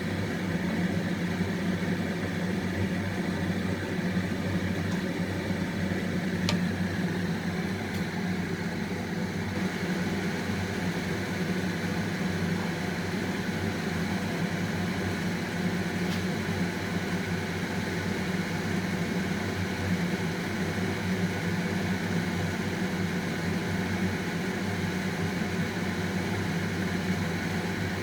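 Kitchen exhaust fan running with a steady hum, with a couple of faint clicks.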